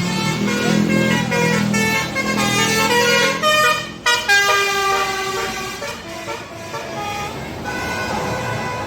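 Bus telolet horn of the basuri type playing a multi-note tune, its pitch stepping up and down, with a short break about four seconds in.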